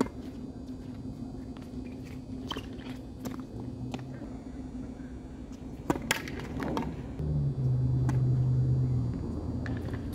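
Tennis ball struck by rackets and bouncing on a hard court: a few sharp pops in a rally, then a hard serve hit about six seconds in, over a steady low hum. Soon after the serve a louder low drone, the loudest sound here, runs for about two seconds.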